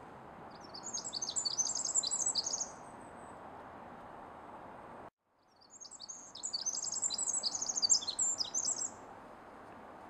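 Pacific wren singing: two long bursts of its very fast, high-pitched song, a jumble of rapid trills and notes, the second starting about five and a half seconds in. A steady low hiss lies underneath.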